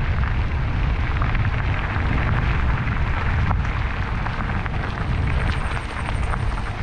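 Wind rumbling heavily on an action camera's microphone during a mountain bike ride, with many small crackles and clicks from the bike and tyres on the trail.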